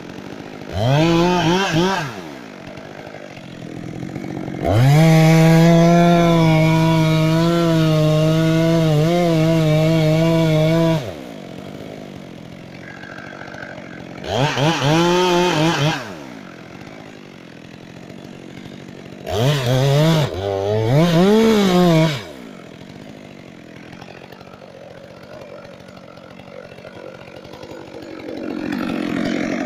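Two-stroke chainsaw idling between bursts of throttle. It revs up and down about a second in, again near fourteen seconds, twice around twenty seconds and once more near the end, and holds steady at high revs for about six seconds from around the five-second mark.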